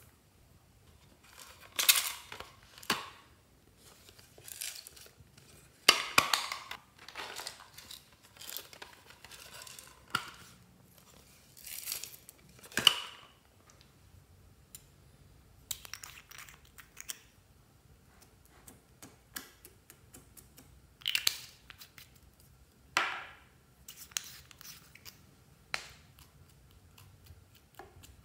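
Hands handling small plastic bottles and packets of slime add-ins over a glass dish: scattered crinkling, clicking and tapping in short separate bursts with quiet gaps between.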